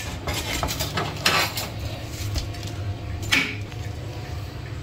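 Metal tongs clicking and scraping against a steel pot and a plate while lifting cooked shrimp out, in a few scattered clinks.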